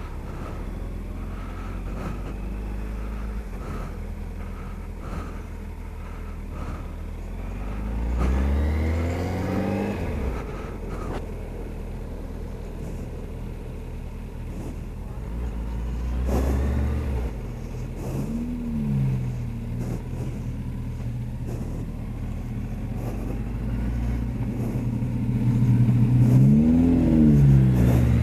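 Suzuki B-King's inline-four motorcycle engine running through traffic, revving up and easing off about four times as the rider accelerates, the last and loudest near the end, under steady wind and road noise. A faint regular ticking sounds for the first ten seconds or so.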